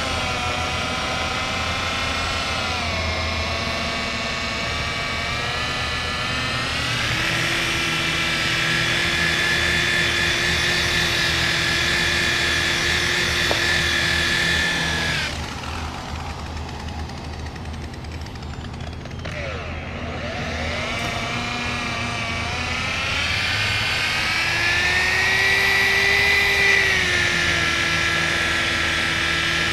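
Electric pad polisher running on a panel, working compound into oxidized carbon fibre. Its motor whine shifts up and down in pitch, drops lower and quieter about halfway through, then climbs back.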